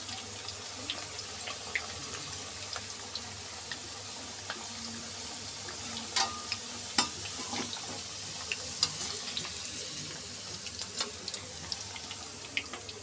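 Potato wedges deep-frying in hot oil on a high flame: a steady sizzling hiss with scattered sharp crackles and pops as a wire mesh skimmer lifts the half-fried wedges out.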